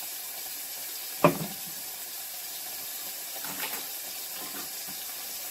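Beef brisket searing in a hot oiled pot, with a steady sizzle. A sharp knock comes about a second in, and a few lighter knocks follow later.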